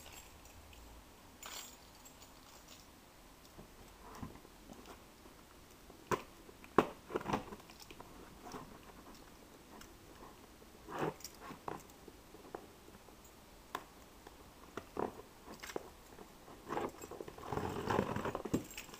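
A key dragged and jabbed along the packing tape of a cardboard box to slit it open, with scattered clicks, scrapes and key jingles, and a denser stretch of scraping and crunching near the end.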